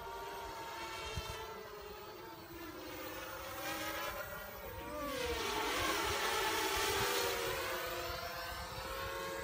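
Two small FPV racing quadcopters flying at once, one of them with Emax RS2205 brushless motors. The buzzing whine of their motors and propellers rises and falls in pitch with the throttle, and grows louder around the middle.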